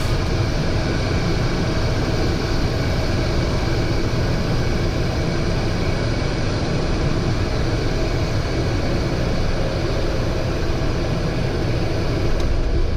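Steady noise of a Cessna Citation XLS business jet in motion: the rush of its turbofan engines and air, with a few faint steady tones and no change in level.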